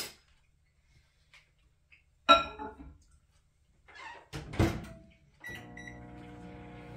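A dish clinks and rings briefly about two seconds in, then the door of an over-the-range microwave oven thumps shut about four and a half seconds in. A few short keypad beeps follow, and the microwave starts running with a steady hum near the end.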